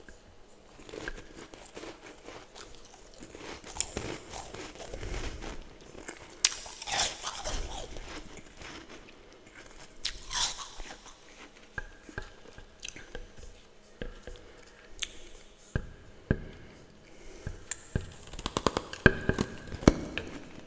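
A person biting and chewing soft, crunchy humidifier frost ice close up, in irregular crunches with pauses between. A quick run of louder crunches comes near the end.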